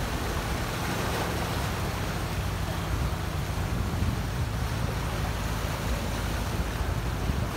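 Sea surf washing and breaking into a narrow rocky inlet, a steady rushing of churning water, with wind rumbling on the microphone.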